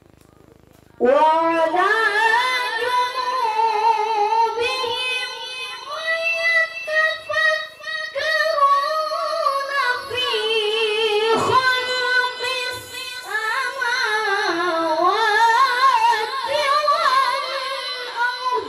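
A child qari reciting the Quran in a high-pitched voice in melodic tilawah style. The voice comes in suddenly about a second in, with long held notes and rapid wavering ornaments.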